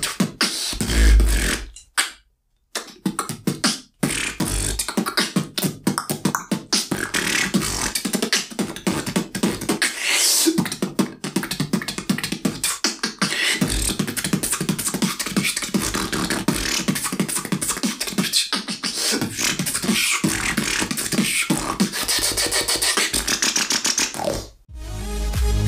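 Man beatboxing a fast routine with his mouth: deep kick-drum thumps under a dense run of sharp snare and click sounds, with a brief stop about two seconds in.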